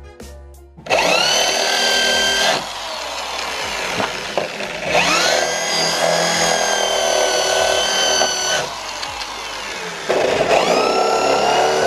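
Corded electric drill drilling out spot welds in the steel rocker-panel seam of a pickup. It comes in three loud runs, each opening with a whine that rises as the motor spins up and then holds steady, with quieter stretches between them as the bit works in the metal.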